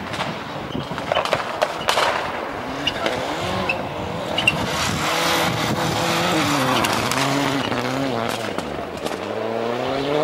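Rally car engine revving hard on a snowy stage, its pitch climbing and dropping with each gear change as the car approaches and slides past, then rising again near the end. A few sharp cracks sound in the first two seconds.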